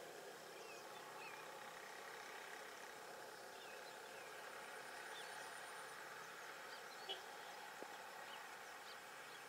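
Faint outdoor ambience: scattered short bird chirps over a low steady hiss, with one small click about seven seconds in.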